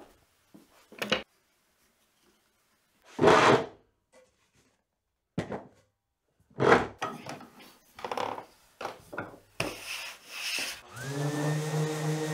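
Plywood cabinet parts and clamps being handled, with short knocks and a few louder scrapes of wood on wood. About eleven seconds in, a random orbit sander starts up, its motor whine rising and then holding steady.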